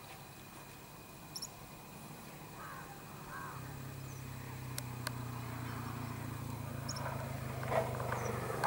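Outdoor ambience with a few faint bird chirps. A steady low hum comes in about three and a half seconds in, with a couple of small clicks.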